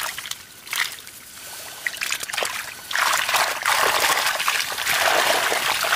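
Water splashing and trickling: a few short splashes, then about halfway through nearly three seconds of heavier, continuous splashing and pouring.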